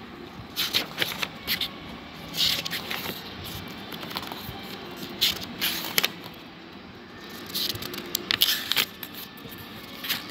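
Pages of a paperback book being turned and handled: crisp paper rustles and flicks at irregular moments, over a faint television playing in the background.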